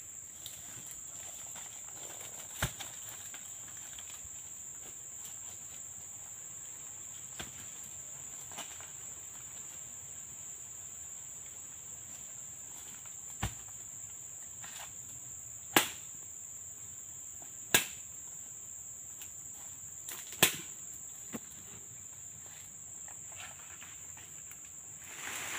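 A steady high drone of insects, with about five sharp knocks spread through it, the loudest in the second half, as oil palm fruit bunches are dropped onto the ground.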